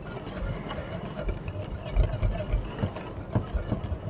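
Wire whisk stirring dry flour and spices in a glass bowl: continuous soft swishing with a light rumble and occasional short clicks.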